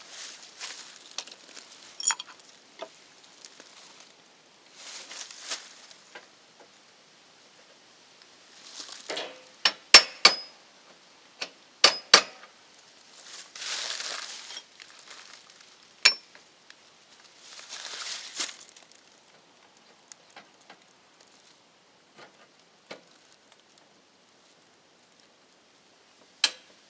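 Hands handling small hard parts and tools: scattered sharp clinks and clicks, the loudest about ten, twelve and sixteen seconds in and a last one near the end, with short bouts of rustling in between.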